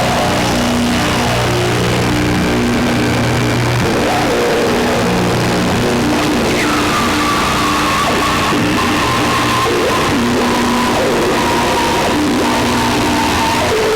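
Noisy electronic drone jam: a Krackatone noise instrument looped through a Pocket Master drive preset, layered with a Bastl Kastle 1.5 synth with reverb. Low stepped notes repeat in a pulsing pattern under a dense hiss. About six and a half seconds in, a high tone drops sharply and then holds, slowly sinking.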